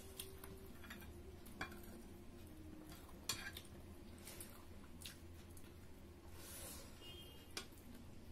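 Quiet eating at a table: a few sharp clinks of a serving spoon against a glass bowl and plates, the loudest about three seconds in, with soft squishing of hands mixing rice and curry over a faint steady hum.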